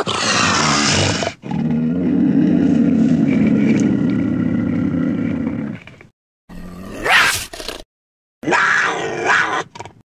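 Minilla monster roar sound effects in Heisei Godzilla style: a cry ending about a second in, then a long low growling roar of about four and a half seconds, then two shorter cries near the end, the first rising in pitch.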